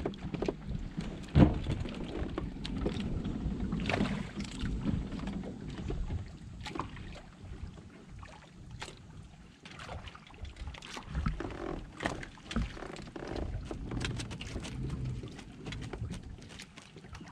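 Scattered knocks, clicks and rustles of gear being handled aboard a plastic fishing kayak, with one sharp knock about a second and a half in, over a low rumble of movement.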